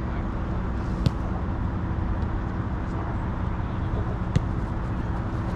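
Steady low outdoor hum with two sharp knocks, about a second in and again near the end: a soccer ball being struck during a goalkeeping drill.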